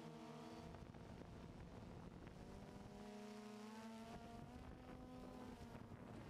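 Faint hum of a DJI Phantom 2 quadcopter's motors and propellers, several tones at once. The pitch shifts and glides upward between about two and four and a half seconds in as the motors change speed.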